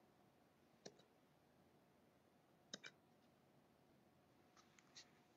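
Golden retriever puppy hiccuping: short, sharp hiccups with a slight squeak, coming every second or two, one of them doubled.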